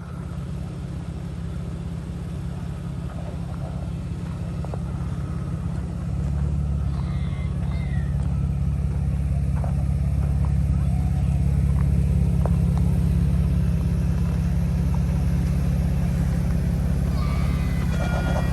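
An off-road 4x4's engine running steadily, getting louder about six seconds in and holding there.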